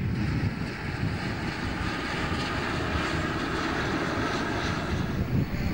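Airplane engine noise: a steady, even rush with no clear pitch, holding at one level throughout.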